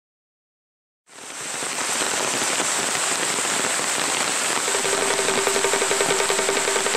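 Heavy rain falling on a pond's surface, a dense steady hiss that fades in after about a second of silence. About halfway through, a steady low buzzing tone joins the rain.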